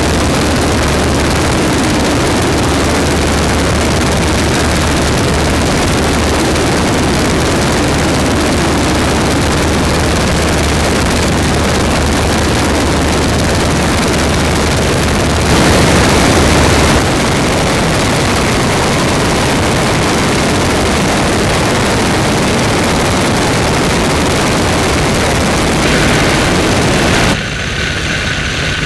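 Engine and propeller of a Boeing F4B-2 replica biplane running steadily in flight, with heavy wind rush over the microphone. A brief louder stretch comes a little past halfway, and near the end the sound turns quieter and thinner.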